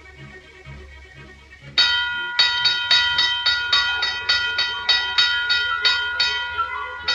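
A boxing-ring bell rung rapidly over and over, about four strikes a second, starting about two seconds in and stopping near the end, each strike leaving a ringing tone. Soft orchestral music plays beneath it.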